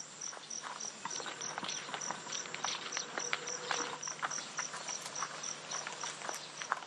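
An insect chirping steadily in rapid high pulses, about four a second, with scattered light clicks and crackles throughout.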